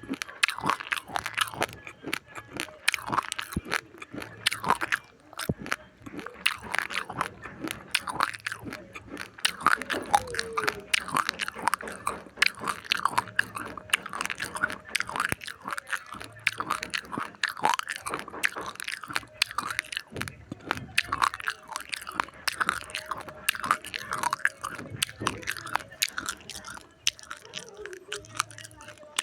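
Close-up crunching and chewing of dry raw rice grains: a rapid, continuous crackle of small sharp cracks as the hard grains are bitten and ground between the teeth.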